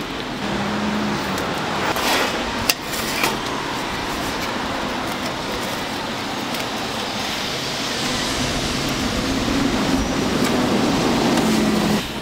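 Steady street traffic noise, with a few sharp knocks about two to three seconds in. The noise grows louder near the end with a low engine hum.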